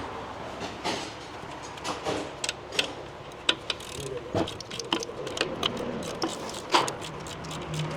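Irregular metallic clicks and clinks of hand tools unbolting a car's brake caliper.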